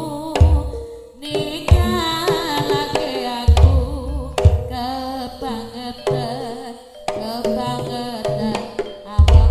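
Live jaranan music: a drum ensemble with sharp hits and several deep, heavy strikes, under a wavering melody line.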